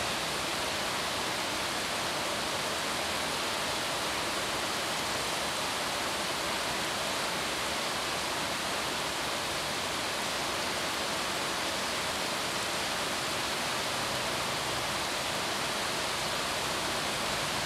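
A steady, even hiss of background noise that holds at one level throughout, with no other events.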